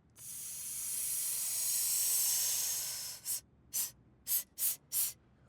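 Cartoon sound effect of air hissing out as a character deflates: one long hiss that swells and fades over about three seconds, then five short puffs of escaping air.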